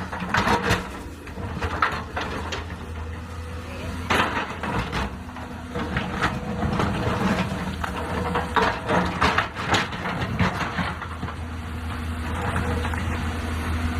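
Heavy excavator's diesel engine running steadily, with irregular knocks and clatters of rock being dug and moved.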